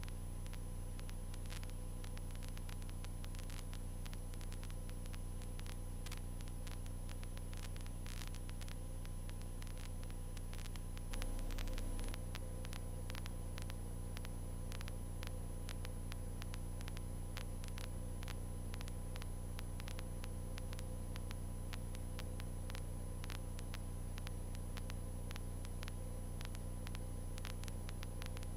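Cessna 152's Lycoming O-235 four-cylinder engine running at steady power while climbing out after takeoff, heard as a low drone through the intercom audio feed with a constant crackle of static clicks. The level swells briefly about eleven seconds in.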